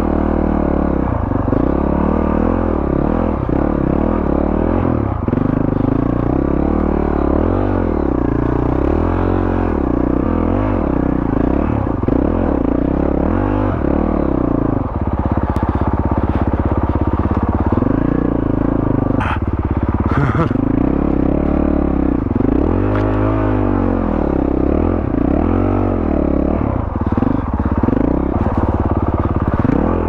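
Honda CRF450RL's single-cylinder four-stroke engine through a Yoshimura RS4 full exhaust, on the move and revving up and down again and again as the throttle is worked. It holds steadier for a few seconds past the middle, and there is a sharp clack about two-thirds of the way through.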